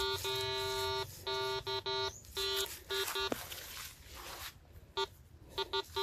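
Metal detector's target tone: one low, steady pitch sounding in a run of beeps of uneven length, long ones in the first half and short, choppy ones near the end, with a pause in between.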